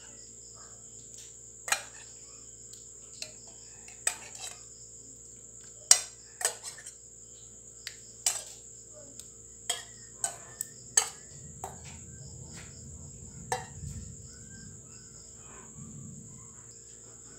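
Kitchen utensils and a steel bowl clinking and knocking in about a dozen sharp, irregular clicks, over the steady high-pitched chirring of night insects such as crickets.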